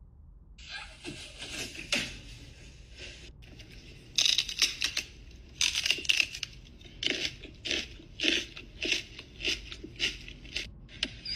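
Loud crunching in a string of short crackly bursts: a few longer ones in the first half, then quicker ones at about two to three a second.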